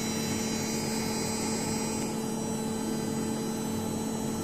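Samsung Ecobubble washing machine running with a steady, even hum and a faint whine.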